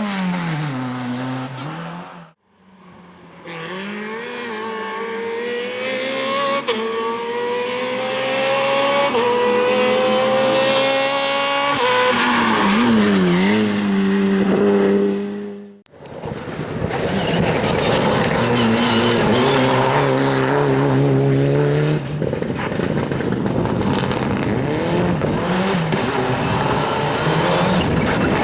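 Competition car engines accelerating hard through the gears: the engine pitch climbs, drops sharply at each upshift and climbs again, with tyre noise underneath. Several short clips are cut together, with abrupt breaks about two seconds and sixteen seconds in.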